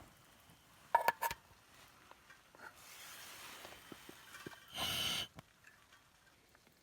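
Handling sounds at camp: a quick few sharp clinks with a short ring about a second in, then a soft hiss and a brief louder rasp about five seconds in.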